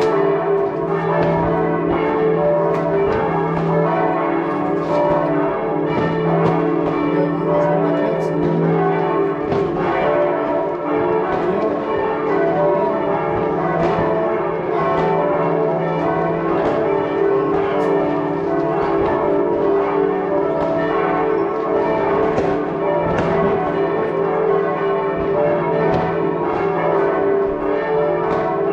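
Several church bells ringing together without pause, overlapping at different pitches, with frequent sharp firework bangs scattered throughout.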